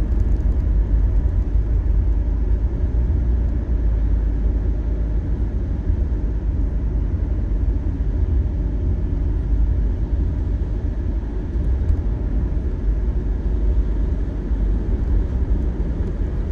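Steady low rumble of road and engine noise inside a car's cabin, cruising at highway speed.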